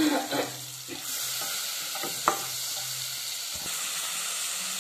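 Raw chicken pieces frying in sizzling butter in a nonstick pan and stirred with a spatula. The sizzle gets louder about a second in, and the spatula knocks sharply against the pan once a little after two seconds.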